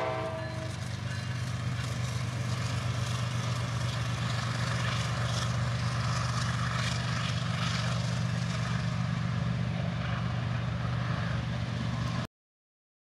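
Four Wabtec ES30ACi diesel-electric locomotives with GEVO-12 V12 engines running together as they pass: their horn chord cuts off about half a second in, leaving a steady low engine drone with wheel and rail noise. The sound cuts off abruptly near the end.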